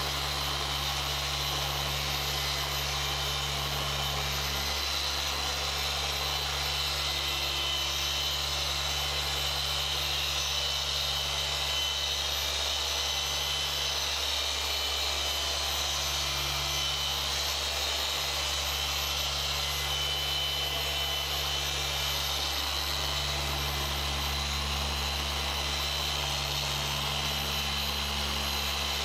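Rupes Bigfoot random-orbital machine polisher running steadily, its pad working fine finishing polish into car paint during the refining polishing stage. The motor gives a continuous whir whose low hum changes a few times as it moves across the panel.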